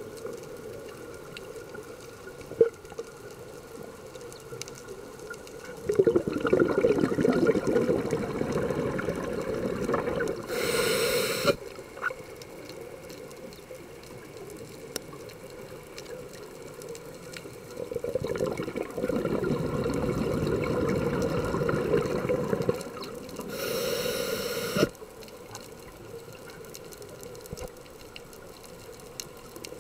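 Scuba regulator breathing underwater: two long exhalations of bubbling, each followed at once by a short hiss of inhalation through the regulator, with quieter stretches between breaths.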